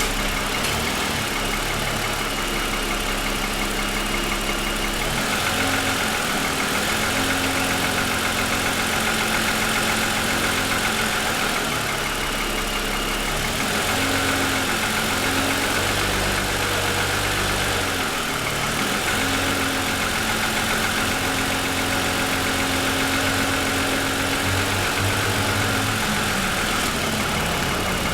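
2007 Lexus ES350's 3.5-litre V6 idling with the hood open, with a steady, rapid knocking from piston slap. The slap comes while the engine is still cold after starting, and the owner takes it for a design or production defect.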